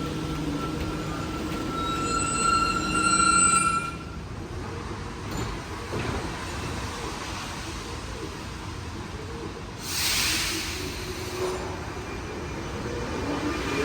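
Rubber-tyred metro train running at low speed on a wet viaduct: a steady high whine with overtones for the first four seconds, then a running rumble, with a short loud hiss about ten seconds in.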